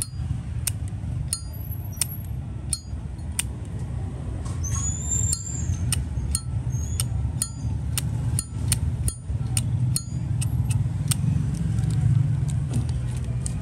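Brass Zippo lighter being worked by hand: a series of sharp metallic clicks, a little under one a second and faster in the second half, each ringing briefly. This is the lid snapping open and shut, over a steady low hum.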